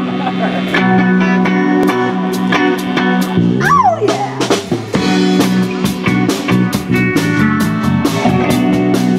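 Live blues-rock band playing an instrumental passage: two electric guitars, electric bass and a drum kit keeping a steady beat. About four seconds in, one note slides down in pitch.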